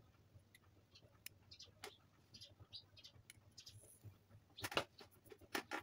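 Small screwdriver clicking and scraping against the head of an LED torch during reassembly. Faint scattered ticks come first, then a quick run of sharper clicks in the last second or so.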